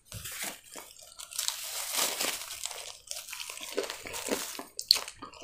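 A paper napkin crinkling around a crispy breaded cutlet, with crunching bites into the breading and chewing.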